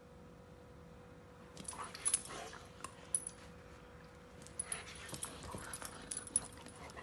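Salukis moving about on a dog bed, their collar tags jingling in short clusters of clicks about two seconds in and again in the second half, with a faint dog whimper.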